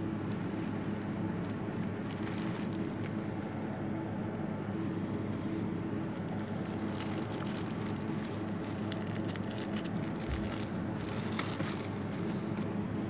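Clear plastic packaging of a wipe-clean tablecloth crinkling as it is handled, in short spells a couple of seconds in and again from about seven to twelve seconds, over a steady low hum.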